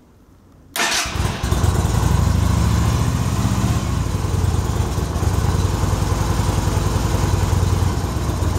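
Yamaha V Star 250's air-cooled V-twin starting from cold on choke: it fires under a second in, then runs at a steady idle.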